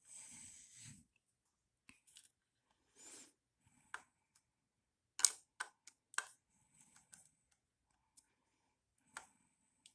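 Hand tools working on the breaker points of a 1964 Johnson 3 hp outboard: a rustle of handling, a short scrape, then several sharp small metal clicks, the loudest about five seconds in.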